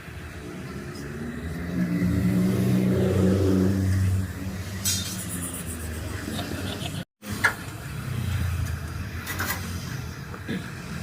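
A vehicle engine running, swelling louder for about two seconds, with a few sharp metallic clinks later on.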